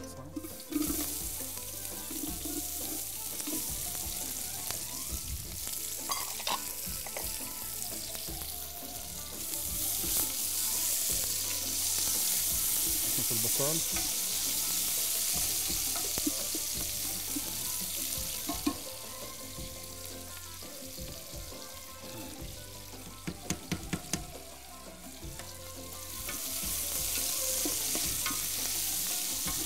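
Sliced onions sizzling in hot oil in a large aluminium pot as they are stirred with a wooden spoon, the first frying of onions for a hashwa. The sizzle swells and fades, with a quick run of sharp knocks about three-quarters of the way through.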